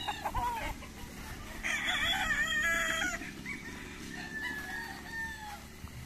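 Gamecock rooster crowing once, about two seconds in, with fainter crowing from other roosters further off.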